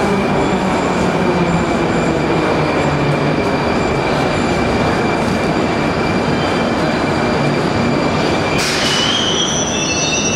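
Metro train running past the platform: a loud, steady rumble with a faint high whine. About eight and a half seconds in, high metal-on-metal wheel squeal sets in and continues to the end.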